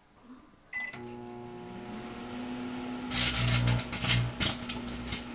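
Microwave oven keypad beep and start, then the oven's steady hum; about three seconds in, loud irregular crackling and snapping begins on top of the hum as the CD's metal layer arcs and sparks.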